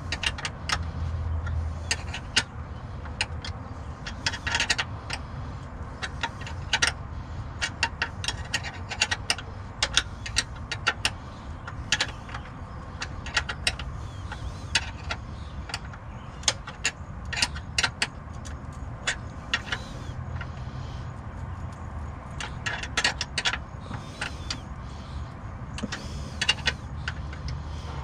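Hand tools and metal parts being handled while working on a car's clutch linkage: irregular metallic clicks and clinks, scattered throughout, over a steady low hum.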